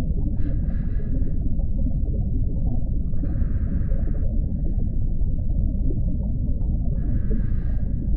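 Steady deep underwater rumble, with three breaths through a scuba regulator, each a hiss about a second long: about half a second in, about three seconds in, and about seven seconds in.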